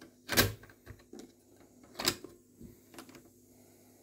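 Mechanical clicks and clunks from a cassette deck's cassette door and piano-key transport buttons being handled: a sharp click about half a second in, another about two seconds in, and a few lighter clicks between.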